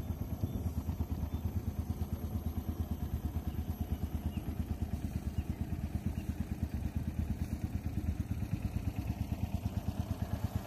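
A small fishing boat's motor running steadily at low trolling speed, with a fast, even throb.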